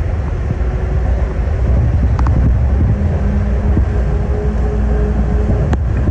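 Airport automated people mover train cruising, heard from inside the car: a steady low rumble with a motor hum that sets in about a second and a half in. A single sharp click comes near the end.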